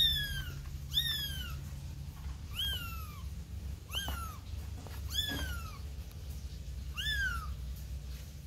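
Kitten meowing repeatedly: six high-pitched cries, each rising then falling in pitch, about one every second or so, with a pause near the end.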